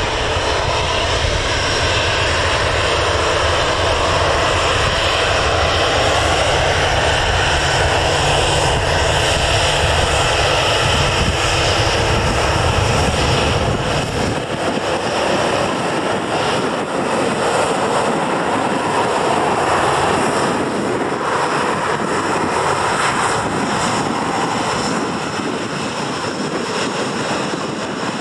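Ryanair Boeing 737's twin jet engines running at taxi power as the airliner taxis past: a steady high whine over a broad rush and deep rumble. The deep rumble drops away about halfway through, leaving the whine and rush.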